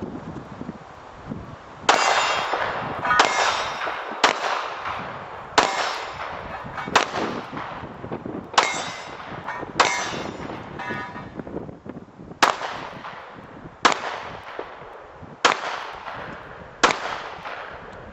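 Pistol shots fired singly at an uneven pace, about eleven in all, one to two and a half seconds apart, each with a decaying echo. A few shots are followed by a metallic ring, typical of hit steel targets.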